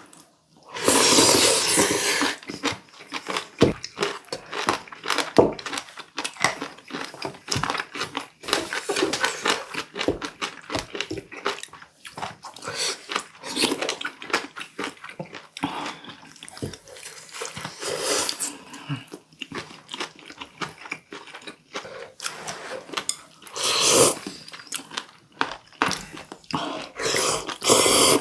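Close-miked chewing and crunching of sea squirt (omandungi) in a mukbang: a dense, irregular run of wet crunches and clicks, with louder bursts about a second in and again near the end.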